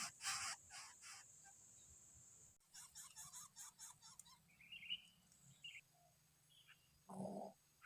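Faint bird sounds: a run of noisy calls about three a second that fades out in the first second, a few short high chirps midway, and one short, lower call near the end.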